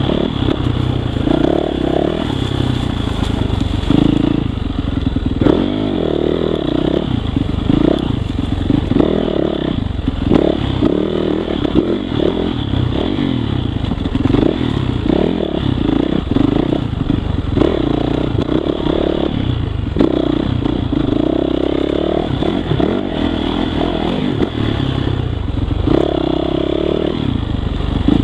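2018 Yamaha YZ450F's single-cylinder four-stroke engine being ridden hard on a rough dirt trail, revving up and dropping off again and again as the throttle is worked. The bike rattles, with short knocks throughout.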